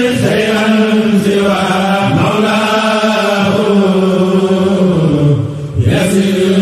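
Mouride religious chant (khassida) sung in long, drawn-out notes that slide slowly between pitches over a steady lower note. The singing dips briefly about five and a half seconds in, then carries on.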